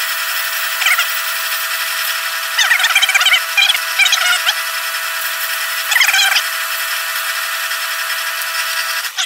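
Craftsman lathe drilling with a 15/16-inch twist drill fed from the tailstock into the spinning workpiece. Under the machine's steady whine the bit squeals now and then as it cuts, most around three to four seconds in and again about six seconds in.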